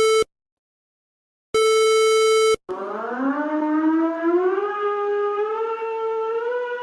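Emergency alert alarm. A harsh buzzer tone cuts off just after the start, and a second one sounds for about a second after a short silence. Then a siren starts and winds slowly up in pitch.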